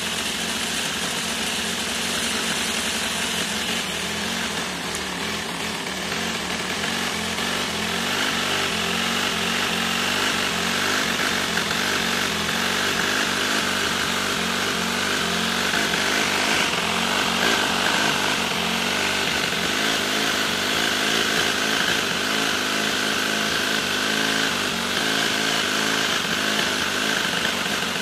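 Miniature flathead inline six-cylinder four-stroke gasoline engine running steadily with a small, buzzing engine note.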